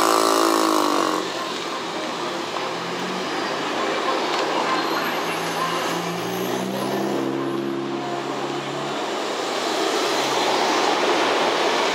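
Road traffic: cars driving past close by, their engine hum rising and falling as each one goes through, over steady street noise.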